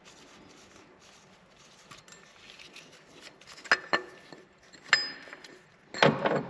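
Metal tools and parts clinking while the engine's water pump pulley is removed: a few sharp single clinks around the middle, then a louder run of rattling clatter near the end.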